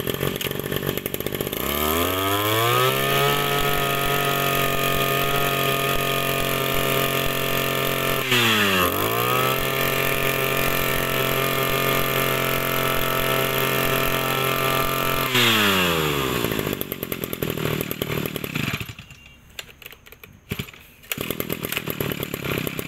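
Robin NB31 brush cutter's 31cc two-stroke engine revving up to a steady high speed, dipping briefly and picking up again about eight seconds in. About fifteen seconds in it is shut off and winds down to a stop.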